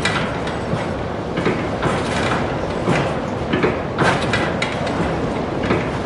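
Windmill mechanism recorded up close, working with irregular knocks and clicks, roughly two a second, over a steady rushing noise.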